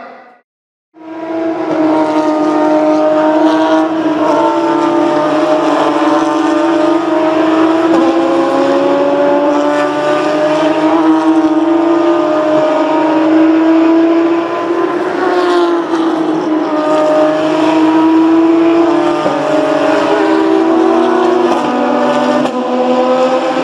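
Porsche 911 GT3 Cup race cars' flat-six engines running hard. The engine notes of several cars overlap and slowly rise and fall in pitch. The sound cuts in after a brief gap near the start.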